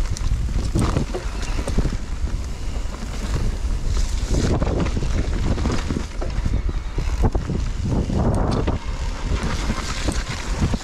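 Mountain bike riding over a wet dirt woodland trail: wind buffeting the microphone and tyre rumble, with the bike rattling and knocking over bumps.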